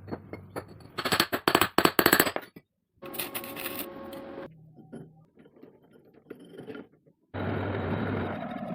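Machinery sounds in short edited pieces: a fast run of sharp metallic clicks and clatter, then a steady whirring that cuts off suddenly, and near the end a motor starting up and running with a low hum.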